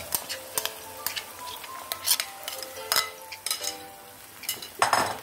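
Yogurt-marinated chicken sizzling in hot oil and ghee in a frying pan, with a wooden spoon knocking and scraping against the pan as it is stirred. One louder scrape comes near the end.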